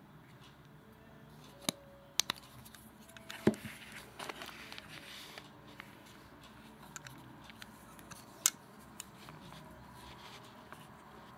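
A black Boker folding knife being handled, giving a few sharp clicks and taps. There is a pair of clicks about two seconds in, the loudest click with a dull knock about three and a half seconds in, and one more near eight and a half seconds.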